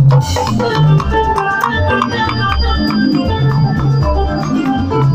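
Live band music: an electronic keyboard plays held, organ-sounding chords over repeating low bass notes, with conga drums beating along.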